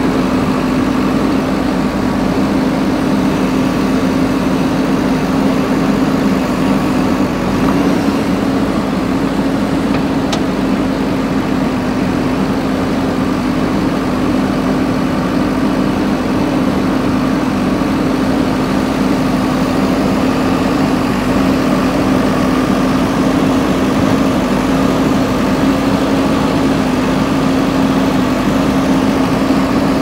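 JCB 3DX backhoe loader's diesel engine running steadily while the backhoe arm digs and lifts buckets of soil.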